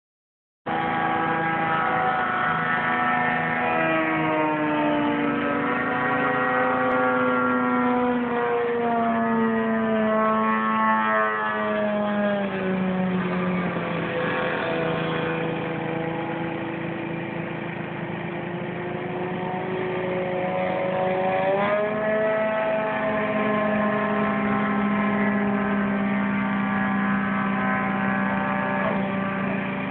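Radio-controlled model airplane flying overhead, its motor giving a steady drone. The pitch slides slowly down through the first half, then climbs sharply about two-thirds of the way through and holds there.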